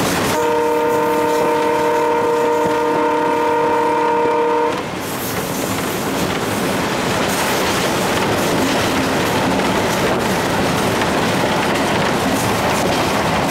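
Horn of an Alco WDM3A diesel locomotive sounding one long, steady, multi-note blast of about four and a half seconds, heard from inside the cab. It cuts off sharply, and the locomotive's engine and wheel-on-rail noise run on at speed.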